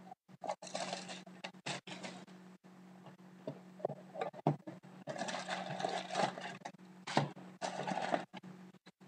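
Packaging of a trading card box being handled and opened by hand: irregular rustling and crinkling in a few bursts, with scattered clicks, over a faint steady hum.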